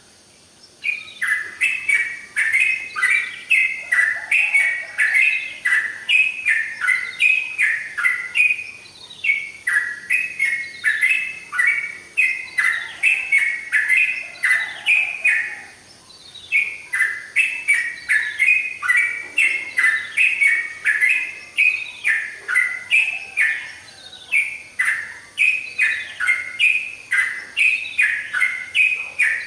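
Yellow-vented bulbul (trucukan) singing continuously, a fast run of short, falling, bubbly notes about two a second, broken by a few brief pauses.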